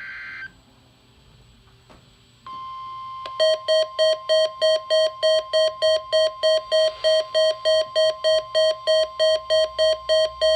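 The end of a SAME data burst, then about two seconds of quiet, then the NOAA Weather Radio 1050 Hz warning alarm tone starts, steady. Under a second later a weather-radio alert beep joins it, pulsing about three times a second.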